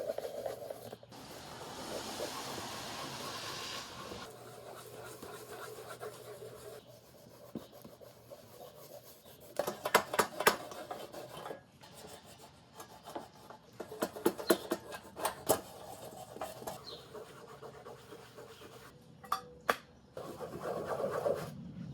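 Cloth rag rubbing shoe polish into the leather covering of an old box camera, a soft, hissy rubbing, broken by clusters of sharp clicks and taps from handling the camera about ten seconds in, around fourteen seconds, and near the end.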